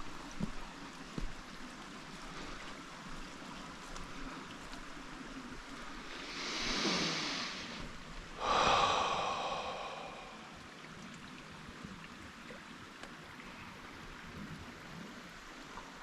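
A man breathing out hard twice, the second breath louder, over the steady rush of a stream. A few light clicks near the start.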